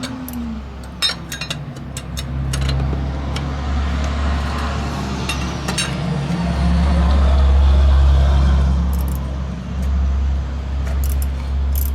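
Metal hand tools clinking in an engine bay over a steady low rumble that swells for a few seconds around the middle.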